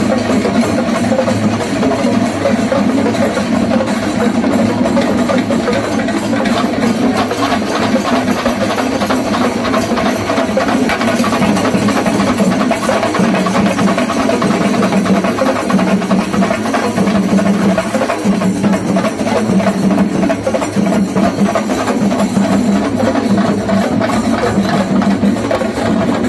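A festival drum troupe playing a fast, dense, continuous beat on drums. A steady low drone runs underneath.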